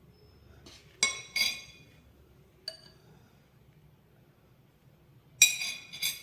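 Kitchen utensils clinking: about five sharp clinks with a short ringing tail. Two come close together about a second in, a fainter one follows near three seconds, and two more come near the end.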